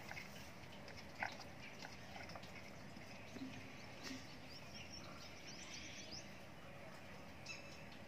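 Faint outdoor background with a few soft clicks and some short, high chirps, the loudest of them a brief high rattle near the end.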